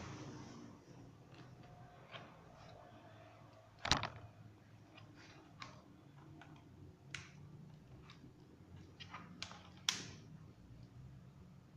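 Scattered light clicks and taps of a plastic laptop case and its parts being handled and worked on during disassembly, with two sharper knocks about 4 s and 10 s in, over a faint low hum.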